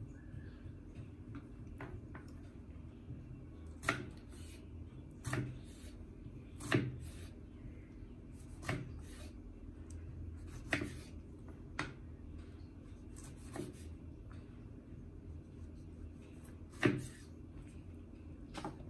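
Knife slicing a tomato on a wooden cutting board: about ten irregular knocks as the blade goes through and meets the board, one every second or two, the loudest near the end, over a low steady hum.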